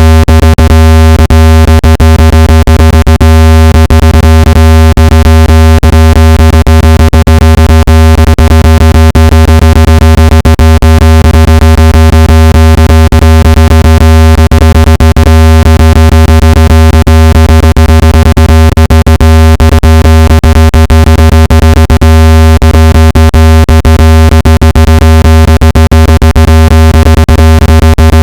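Generated speaker-cleaning tone played very loud: a steady deep hum with many overtones, peppered with a fast irregular crackle of clicks. It is meant to vibrate dust and moisture out of a phone speaker.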